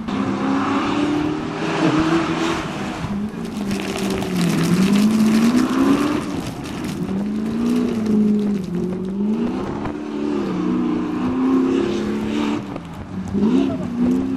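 Modified off-road 4x4's engine revving up and down repeatedly as it is driven hard around a dirt course, its pitch climbing and dropping several times.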